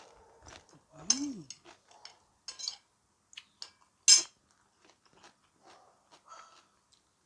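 A person eating close to the microphone: chewing and crunching food, with scattered small clicks of utensils and dishes. A brief hummed 'mm' about a second in, and the loudest sharp crunch about four seconds in.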